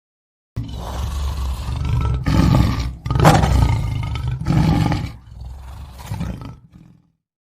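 Lion roaring: a deep, rough roar that starts abruptly, swells and dips several times with its loudest peak about three seconds in, and fades out near the end.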